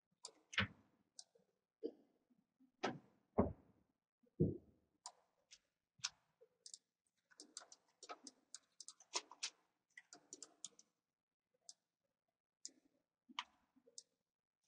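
Faint, irregular clicks and taps of a computer mouse and keyboard, a few heavier taps in the first few seconds and a quick run of lighter clicks in the middle.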